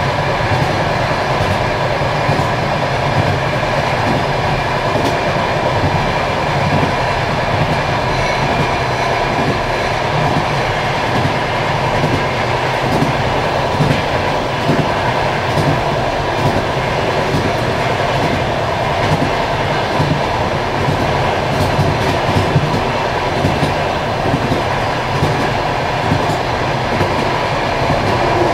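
Passenger train carriage running along the track, heard from inside the last car: a steady rumble of wheels on rails with a constant hum and scattered light clicks.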